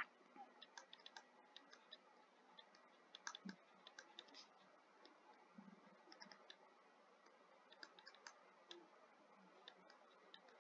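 Near silence broken by faint, irregular clicks of a computer mouse, pressed and released while handwriting strokes are drawn on a computer whiteboard.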